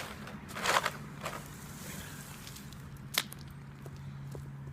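Shovel scraping dirt and debris off a concrete slab: a short scrape under a second in and a smaller one just after, then a single sharp click a little past three seconds.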